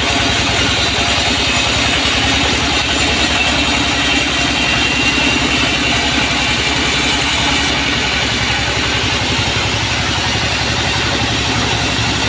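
Band sawmill running steadily, its motor's even pulsing drone mixed with the high hiss of the saw. The highest part of the hiss drops away abruptly about eight seconds in.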